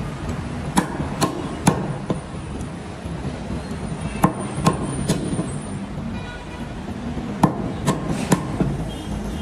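Butcher's cleaver chopping goat meat on a wooden chopping block: three sets of three sharp blows, each blow about half a second after the last.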